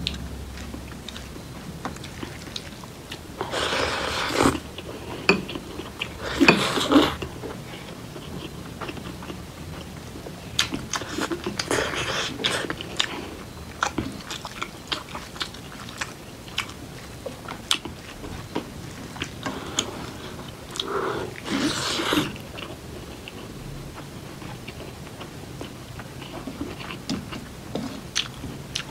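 A person chewing and eating a meal close to the microphone: steady wet mouth clicks and smacking, with a few louder, longer spells of biting and crunching.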